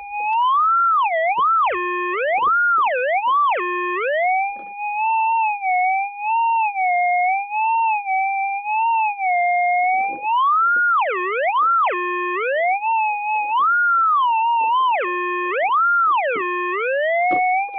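Minelab GPX 6000 metal detector's audio: a buzzy threshold tone that keeps swooping up and down in pitch as the coil is swept over a dig hole, the target response to something in the ground. Several times it drops in steps to a low note before climbing back.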